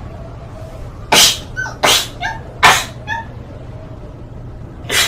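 Four sharp sneezes, the first three about a second apart and the last near the end, each followed by a brief high-pitched squeak.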